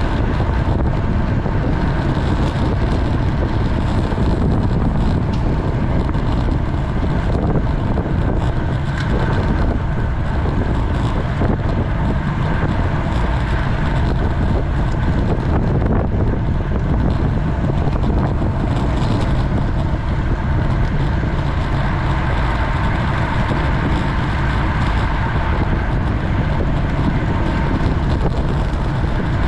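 Steady wind rush on a GoPro's microphone while a road bicycle is ridden, with road and tyre noise underneath.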